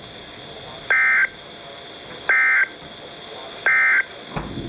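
NOAA Weather Radio EAS end-of-message signal: three short, identical two-tone data bursts about a second and a half apart over radio hiss. These mark the end of the warning message.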